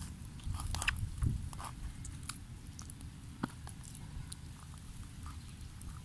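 Hands stuffing chopped herbs into a raw, wet fish on a leaf: small squelches and irregular clicks over a low rumble.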